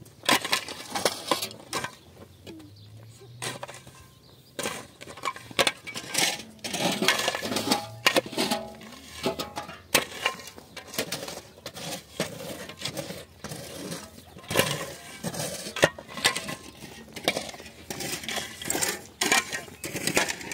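Steel shovel blade striking and scraping into stony soil, repeated clinks and scrapes at an irregular pace as the ground is dug.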